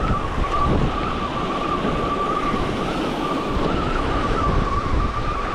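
Ocean surf washing and wind buffeting the microphone, with a steady, slightly wavering high whine running through it.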